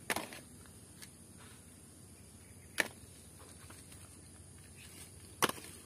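Muddy plastic toys knocking on a hard surface as they are picked up and set down: three short sharp clicks a few seconds apart, with a fainter one about a second in, over a faint steady hiss.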